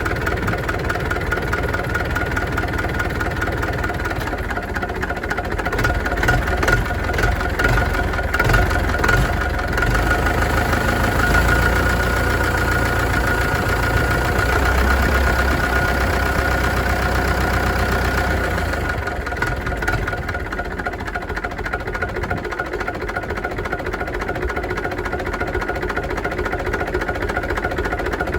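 UTB U650 tractor's four-cylinder diesel engine running steadily at around idle, with a heavier low rumble for several seconds in the middle.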